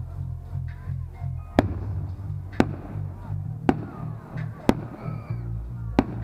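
Five sharp firework bangs, about a second apart, over music with a steady bass beat.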